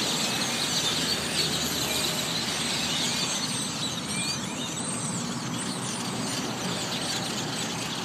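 A large flock of birds calling all at once: many overlapping short, high calls, over a steady wash of traffic noise.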